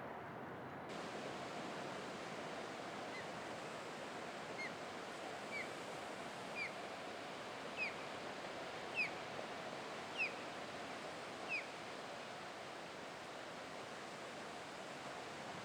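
A bird calling a series of short, upslurred whistled notes about a second apart, growing louder and then stopping, over the steady hiss of surf.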